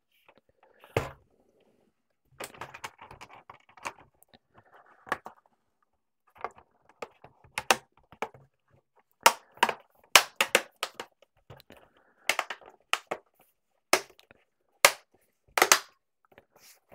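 Sharp clicks and snaps of a Chromebook's bottom cover being pressed down along its edges, its clips seating. The clicks come irregularly, some in quick clusters, the loudest a little past the middle and near the end.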